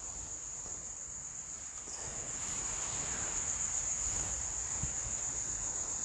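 Steady, high-pitched insect drone, with a faint rustle of handling rising from about two seconds in.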